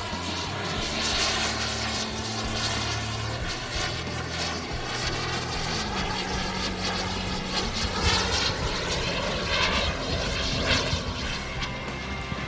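Turbine engine of a radio-controlled model jet in flight: a steady jet roar that swells as it passes, loudest about a second in and again near the last third.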